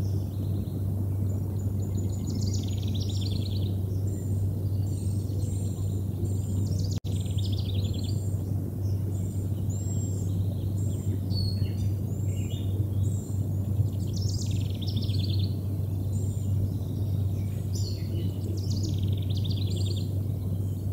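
Several songbirds singing in overlapping trills and short whistled phrases, over a steady low hum. The sound drops out briefly about seven seconds in.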